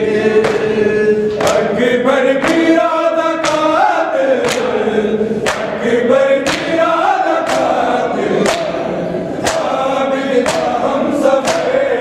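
Men's voices chanting a noha together, with sharp slaps of hands striking bare chests in a steady beat about once a second: matam, ritual mourning chest-beating.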